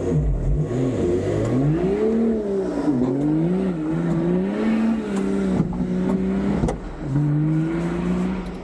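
Off-road vehicle's engine revving, its pitch climbing and falling several times and holding steady for a while between, with a sharp knock about two-thirds of the way through.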